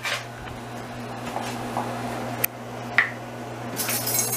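Kitchen utensils and containers being handled: two sharp clicks a little over two seconds in, the second ringing briefly, then a short rustle near the end, over a steady low hum.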